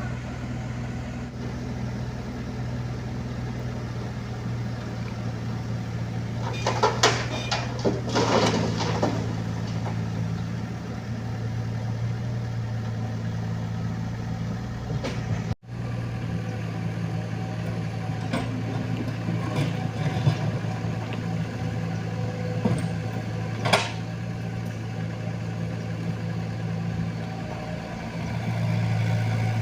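Diesel engine of heavy construction equipment running steadily. Sharp clanks and knocks sound over it: a cluster about a quarter of the way in and a few single ones later.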